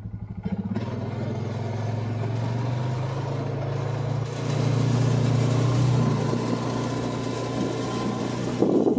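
Motorbike engine pulling away from low revs and then running steadily while being ridden, with a louder rush of noise from about four seconds in. The engine sounds rougher and louder near the end.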